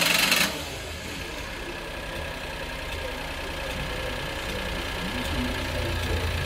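1996 Honda Acty truck's 656 cc three-cylinder engine, just started. A loud burst of noise in the first half second as it catches, then it settles into a steady idle.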